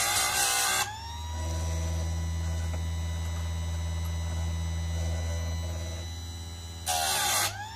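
Einhell electric chain sharpener's grinding wheel grinding a chainsaw chain tooth, steel on abrasive wheel, for about the first second. Then the motor runs free with a steady hum while the wheel is lifted clear, and a second short grind on the next tooth comes near the end.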